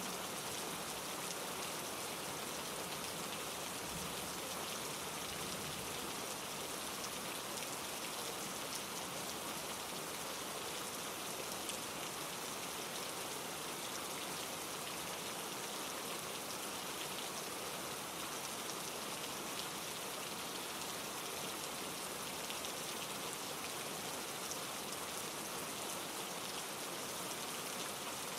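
Steady rain falling in trees, a dense patter of drops over the constant rush of a mountain stream tumbling over rocks.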